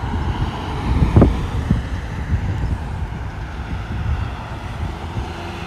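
Low rumble of passing road traffic with wind buffeting the microphone, and a single thump about a second in.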